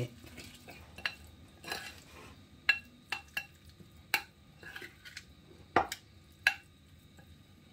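Metal spoon stirring a thick seasoning paste in a glass bowl, with irregular clinks and scrapes of the spoon against the glass.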